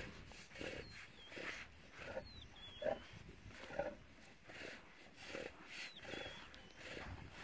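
Lions feeding on a warthog carcass: wet chewing and tearing of meat at the exposed ribs, in irregular short bursts several times a second.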